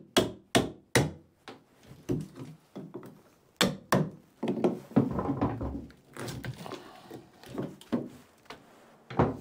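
Hammer striking old boat timber: a quick run of three sharp knocks, then scattered single blows, with a rougher stretch of cracking and scraping about halfway through as a wooden batten is worked loose from fixings that have rusted through, and one hard knock near the end.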